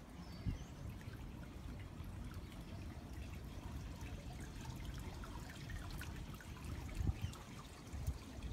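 Water trickling steadily over the edge of an infinity pool, with fine splashy ticks. A few short low bumps stand out, about half a second in and around seven seconds.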